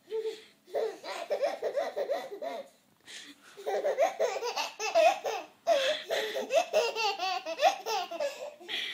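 Toddler laughing in three long bouts of quick, high-pitched laughs, with short pauses about three seconds in and just before six seconds.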